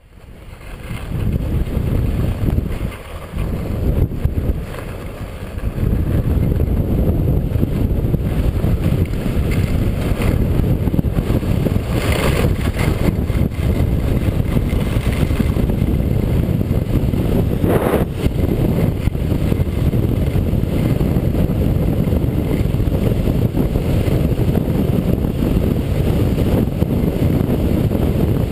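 Wind buffeting a helmet-mounted GoPro HD Hero's microphone as a skier runs downhill at speed: a loud, steady rushing that eases for a few seconds near the start. Two short sharper noises break through partway in.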